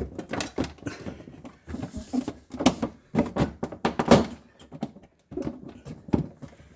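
Refrigerator interior panel being handled and fitted back into place: a series of knocks, clicks and scrapes.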